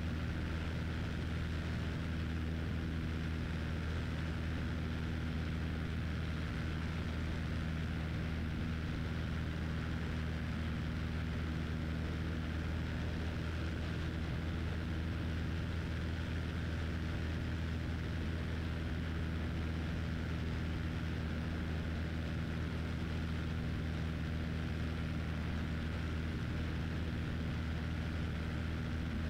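Cessna 172's piston engine and propeller running steadily at climb power just after takeoff: a constant low hum of several steady tones with an even hiss above it.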